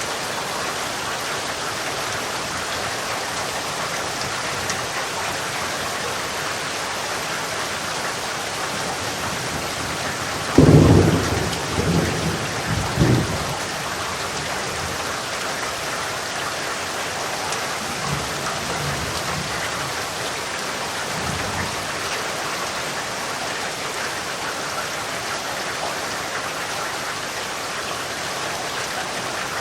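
Steady rain falling, with a sudden loud thunderclap about a third of the way in that rumbles on in a few low pulses for about three seconds. Two fainter low rolls of thunder follow later.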